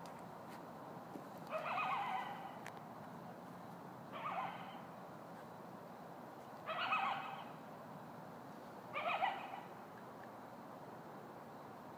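A lone coyote howling: four short, quavering howls, a couple of seconds apart.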